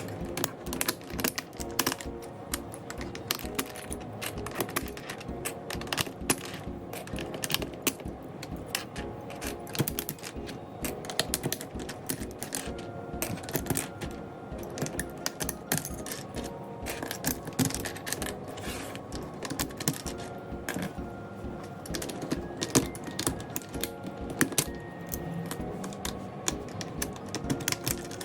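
Quick, irregular plastic clicks and clacks from a mechanical keyboard being worked on, over background music with held tones.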